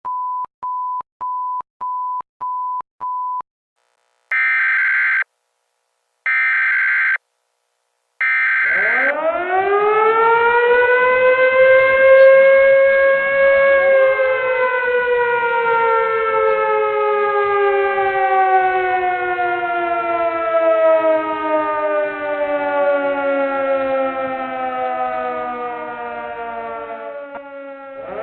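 Alert tones of a mock nuclear-attack warning: quick short beeps for about three seconds, then three longer buzzing tones. About nine seconds in, a civil-defense-style siren winds up and then slowly falls in pitch, with a second, lower siren tone joining and falling with it.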